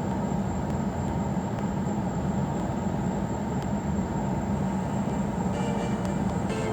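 Steady low rumble of vehicle noise with no break or change.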